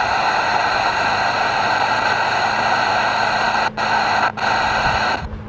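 Steady static hiss with a faint buzz from a portable black-and-white TV's speaker, tuned between stations with no signal coming in. It drops out twice for an instant near the end, then cuts off sharply about five seconds in.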